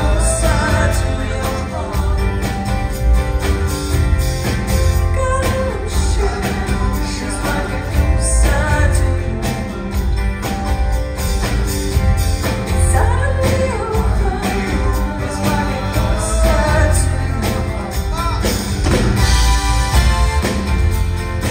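Live band music: a woman sings lead over drums, upright bass, acoustic guitar and keyboard.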